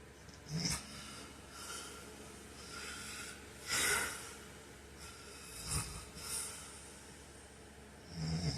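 A man snoring in his sleep: irregular snorts and breathy snores every second or so, the loudest about four seconds in, over a faint steady hiss.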